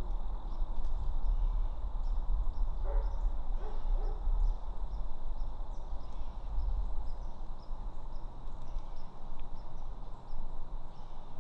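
Wind rumbling on the microphone, with an owl hooting a few short notes about three to four seconds in.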